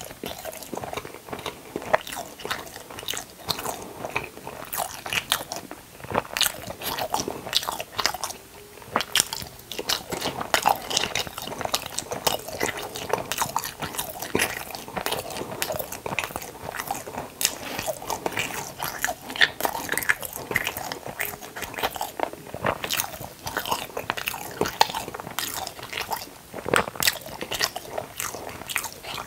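Close-miked eating: a person biting and chewing food right at the microphone, with a dense, irregular run of sharp crackly clicks.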